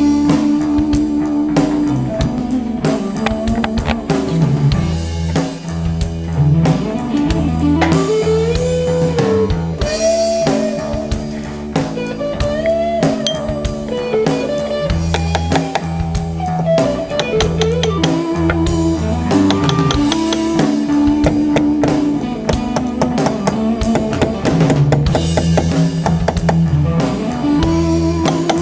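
Background rock-style music with guitar and a drum kit, loud and steady.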